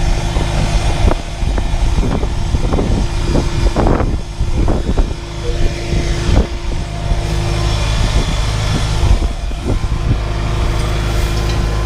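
Tractor engine running steadily, heard from inside the cab, with scattered knocks and clanks over it.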